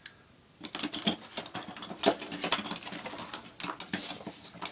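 A taped cardboard shipping box being pulled open by hand: irregular crackling and rustling of cardboard and packing tape, with a sharp crack about two seconds in.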